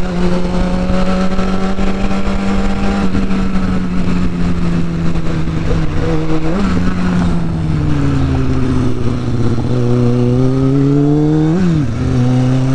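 Dirt bike engine running as it is ridden on the road, holding one steady note at first. Twice the note flicks up briefly and then settles lower, about six and a half seconds in and again near the end, and in between it sags and then climbs again.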